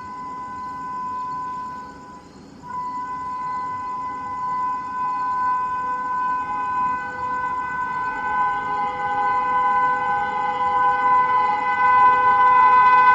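Locomotive horn of an approaching Indian Railways express train, sounding a long steady multi-tone blast. It breaks off briefly about two seconds in, then resumes and grows louder as the train nears.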